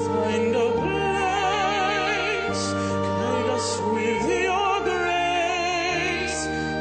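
Operatic singing with wide vibrato over sustained backing music, from a vocal duet pairing a pop voice with an opera voice.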